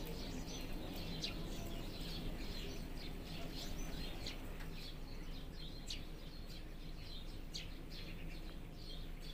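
Birds chirping, with many short calls coming in quick succession over a steady low rumble.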